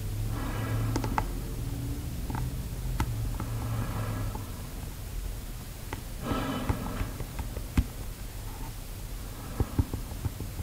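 Long fingernails tapping on a plastic snorkel tube and its mouthpiece: scattered sharp clicks, with a quick cluster of taps near the end. Between them come slow breaths drawn through the snorkel, a short hollow rush every few seconds.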